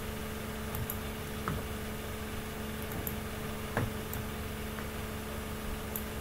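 Steady low electrical hum with two constant tones, with a few faint short clicks scattered through it.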